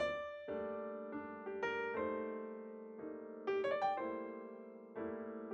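Outro piano music: held chords under a slow melody of struck notes that each ring and fade, with a quick run of higher notes about three and a half seconds in.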